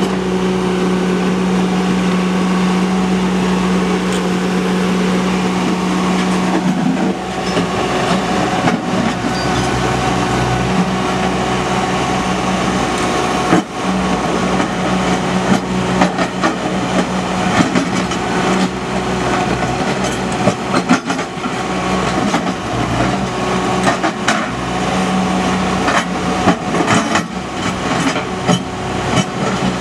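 Ditch Witch SK900 mini skid steer's engine running steadily under digging load, its pitch dropping briefly a couple of times. Through the second half, short knocks and scrapes from the bucket working rocky soil.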